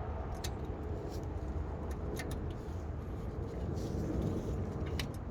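Several light, sharp metallic clicks from tools and brake parts being handled, over a steady low rumble.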